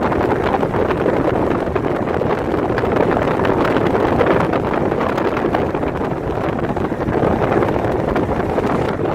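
Steady rush of wind and road noise from a car travelling at highway speed, with wind buffeting the microphone.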